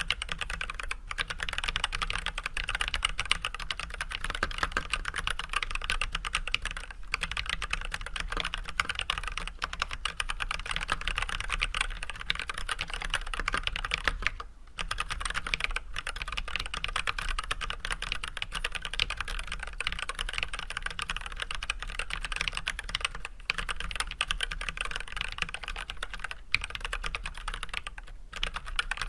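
Steady typing on an Archon AK87 hot-swap mechanical keyboard fitted with unlubed Everglide Red 67g linear switches with switch films and white PBT keycaps: a dense, continuous run of key presses, with a short break about halfway through.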